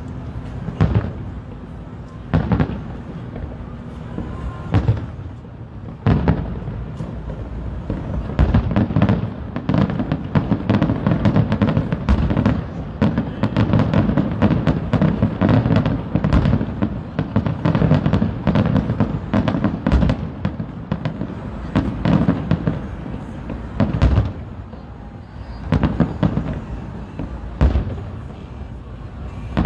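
Aerial fireworks bursting: separate booms every second or two, building into a dense rapid volley of bangs and crackle through the middle, then thinning back to single booms near the end.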